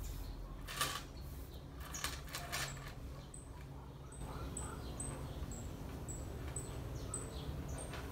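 Faint clinks of a metal curb chain and rustling of yarn as a needle and thread are worked through the chain links to stitch the strap onto a crochet bag, with a few light clicks early on. In the second half a faint, high, short chirp repeats about twice a second.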